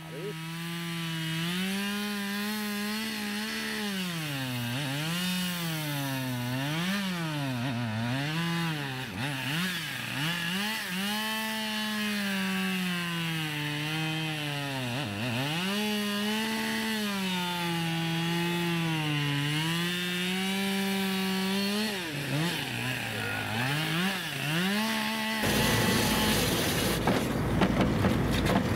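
Two-stroke chainsaw cutting into ice, its engine speed rising and falling over and over as the bar bites and frees. About 25 seconds in it gives way to a rougher, steadier engine noise.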